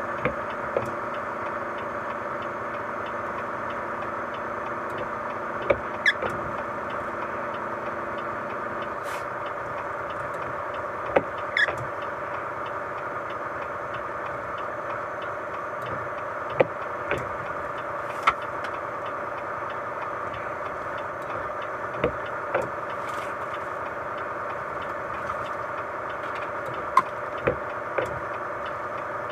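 Steady hum of a vehicle driving, with pairs of sharp thumps about half a second apart every five seconds or so, like front and rear tyres crossing road joints.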